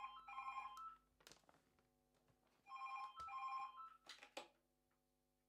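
A phone ringing faintly: two short rings of a quickly alternating electronic tone, about three seconds apart, with a few faint clicks between them.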